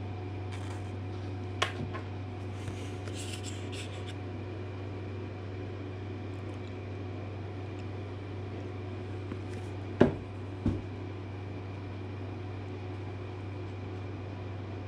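Handling sounds from gluing up wooden toy parts over a steady low hum: a squeezed bottle of white wood glue laying a bead on a board, and two sharp wooden knocks about ten seconds in as the pieces are handled and set down.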